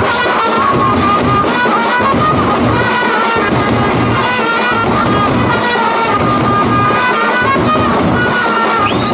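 Brass band playing a tune, trumpets carrying the melody over bass drum and side drums.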